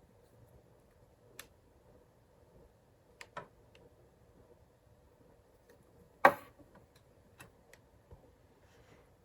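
Scattered clicks from the keypad buttons of an old Uniden cordless phone handset being pressed, with a much louder click about six seconds in. Grime has the buttons sticking.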